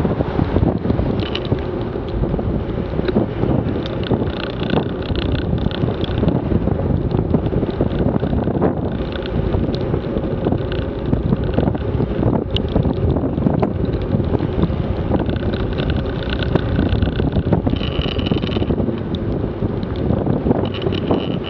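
Wind buffeting and rushing over the microphone of a camera on a motorcycle riding at road speed, with road and engine noise underneath.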